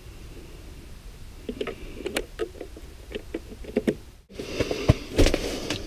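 Small plastic-and-metal clicks and taps of a tip-up being set by hand, its spring-steel flag bent down and hooked onto the trip mechanism. About four seconds in the sound breaks off, then louder knocks and rustles of gear being handled follow.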